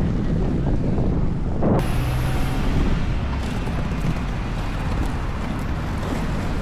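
Wind rumbling on the microphone while skating along a road, a steady low rumble that changes abruptly just under two seconds in.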